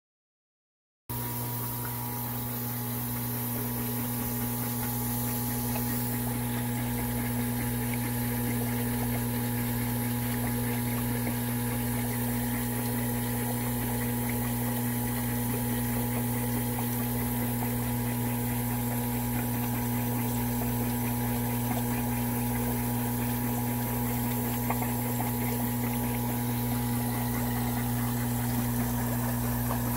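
Aquarium pump running with a steady low hum over a constant hiss of moving water, starting abruptly about a second in.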